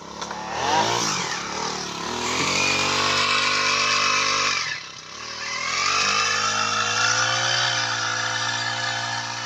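Small two-stroke engine of a backpack power sprayer (mist blower) running. It revs up in the first second or so, drops briefly about five seconds in, then revs back up and holds at high speed while blowing spray mist.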